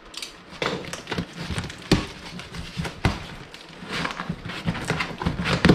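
Cardboard packaging being handled inside a large shipping box: flaps and inner cardboard pieces rustling and scraping, with a few sharp knocks.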